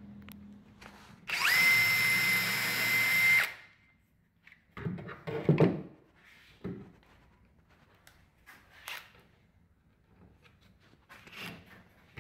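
Makita cordless drill whining quickly up to speed, running steadily for about two seconds, then stopping, while working on clamped cabinet face frames. A few knocks follow a couple of seconds later.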